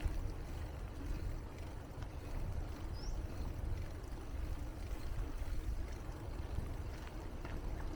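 Steady low rumble of a bicycle ride: wind buffeting the microphone and tyres rolling on the path. A single brief high chirp comes about three seconds in.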